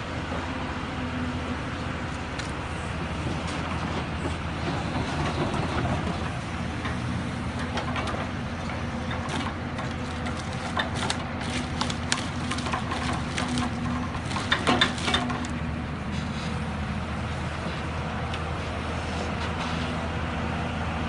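Hyundai crawler excavator's diesel engine running steadily under hydraulic load while its forestry grapple picks up and swings pine logs. Through the middle comes a run of knocks and clatters of logs striking one another, loudest about two thirds of the way in.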